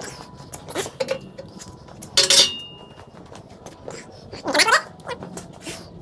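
Shop clatter: a sharp metallic clank about two seconds in that rings briefly, among scattered clicks and knocks, with two short squeals that bend up and down in pitch.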